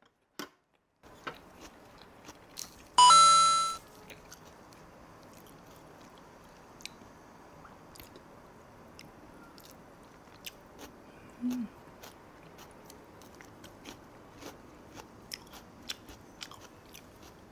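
Close-up chewing: soft crunching and wet mouth clicks of a person eating jeon (Korean pancakes) with onion. About three seconds in there is one brief loud pitched tone that dies away within a second.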